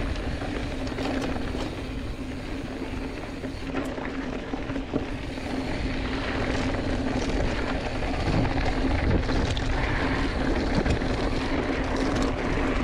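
Giant Fathom 2 hardtail mountain bike rolling fast over a rocky dirt singletrack: steady tyre noise and small rattles and ticks from the bike over loose stones, with a steady hum, heard through a chest-mounted action camera. It gets a little louder about two thirds of the way in.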